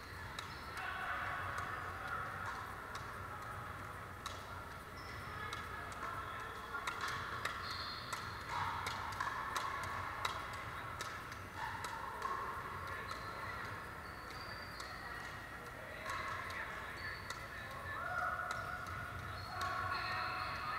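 Pickleball paddles striking a hard plastic ball, with the ball bouncing on a wooden gym floor: irregular sharp pops and clicks from this and neighbouring courts, over a steady echoing background hum and murmur in the hall.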